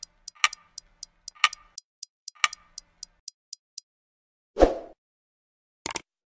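Clock-ticking sound effect, about four light ticks a second with a fuller tick on each second, stopping a little under 4 s in. A short whoosh follows about half a second later, then a quick pair of mouse-click sounds near the end.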